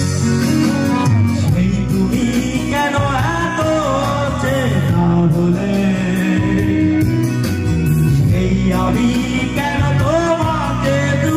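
Bengali song performed live: instrumental backing music plays, and a man's singing voice comes in over it about three seconds in, amplified through a handheld microphone.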